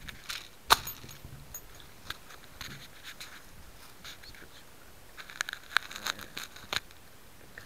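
Handling noise right at the microphone: irregular clicks, knocks and scraping as a small camera is picked up and moved onto an airsoft M4. There is one sharp knock about a second in and a cluster of quick clicks near the end.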